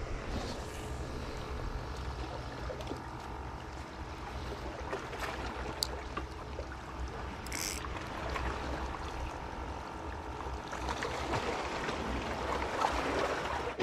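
Sea water lapping against breakwater rocks over a steady low hum, with a few faint clicks.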